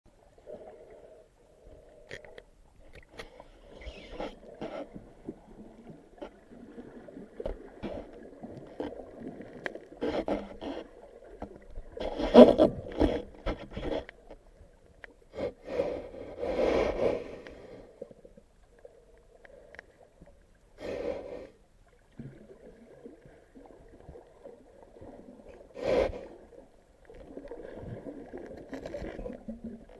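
Muffled underwater sound picked up by an action camera mounted on a five-prong pole spear. The spear tip scrapes and knocks against rock and sand as it is worked under a rock, with louder bursts about 12, 17 and 26 seconds in.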